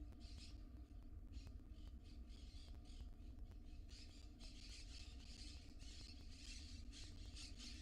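Barn owls in a nest box giving short raspy hissing calls, repeated about once or twice a second and coming thicker in the second half. A faint low electrical hum runs underneath.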